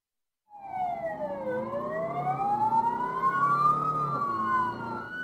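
Police car sirens wailing, two slow rising-and-falling sweeps out of step with each other, starting suddenly about half a second in, over the low rumble of the pursuing patrol car.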